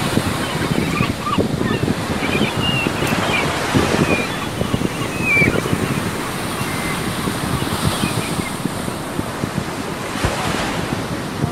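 Rough surf breaking steadily on a sandy beach, with wind buffeting the microphone and a few short, high chirps scattered through.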